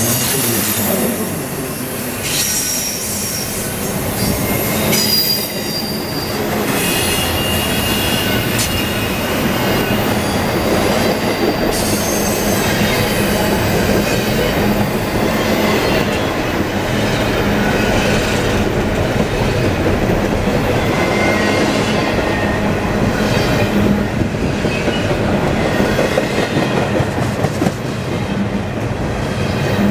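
CSX double-stack intermodal freight train's container well cars rolling past at speed: a steady rumble and clatter of steel wheels on rail, with high wheel squeals that come and go.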